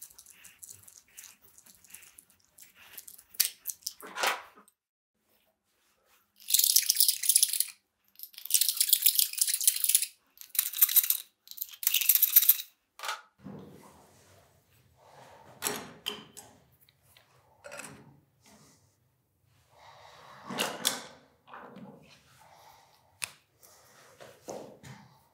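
Copper pipe being worked with hand tools: a few light clicks, then several loud bursts of harsh scraping as the cut pipe end is deburred. Softer handling, knocks and pen scratching follow as the pipe is pushed into a press fitting and its insertion depth is marked.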